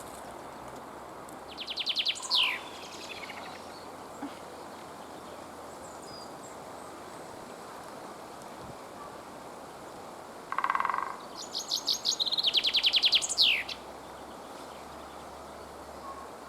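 A small songbird sings twice, each song a quick run of repeated high notes ending in a short downward flourish, over steady outdoor background noise. A brief lower call comes just before the second song.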